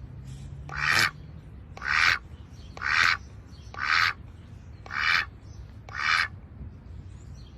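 Duck quacking: six loud quacks about a second apart.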